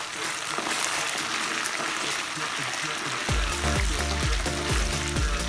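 Chopped red onions sizzling as they go into hot palm oil and are stirred, with a steady frying hiss. About three seconds in, background music with a heavy bass beat comes in over the sizzle.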